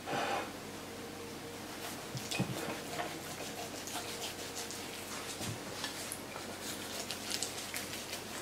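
Chef's knife carving a whole roast chicken on a ceramic platter: faint crackling and many small ticks as the blade cuts through the crisp skin, with a few soft knocks.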